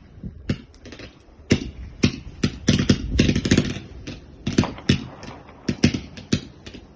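New Year's fireworks and firecrackers going off: an irregular string of sharp bangs and cracks, with a dense crackling cluster about three seconds in.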